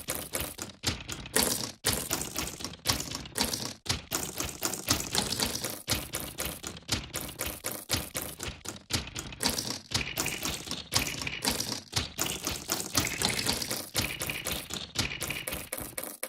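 Poker chips clicking and clattering in quick succession, sequenced into a steady rhythmic beat.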